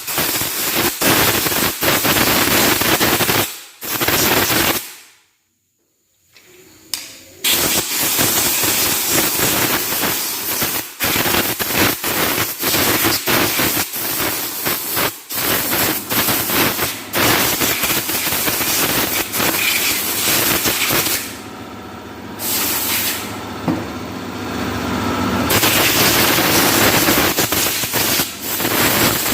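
Compressed-air blow gun blasting dust out of a dismantled Suzuki Wagon R integrated starter generator, a loud hiss broken by many sudden short stops as the trigger is released and pressed again. There is a silent gap of about two seconds about five seconds in.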